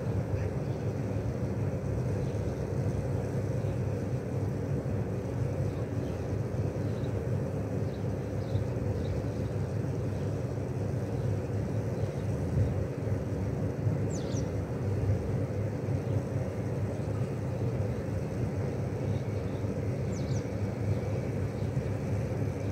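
Steady low outdoor rumble at an even level, with two short high chirps, one about fourteen seconds in and one about twenty seconds in.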